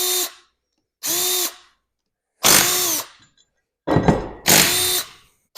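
Power drill run in about four short bursts during an engine teardown, each burst a motor whine that rises and falls in pitch, most likely spinning out bolts.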